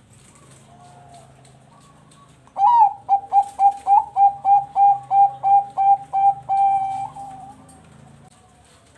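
Zebra dove (perkutut bangkok) singing. After a faint short coo, it gives a rising first note and then a quick, even run of a dozen or so short staccato coos at about three or four a second, ending in one longer drawn-out coo that fades.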